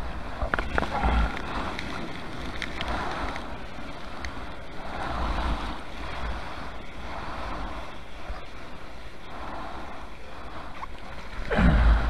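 Broken surf whitewash rushing and fizzing around a camera held at the water's surface, swelling every couple of seconds. Near the end the camera goes into the foam with a louder rush of water.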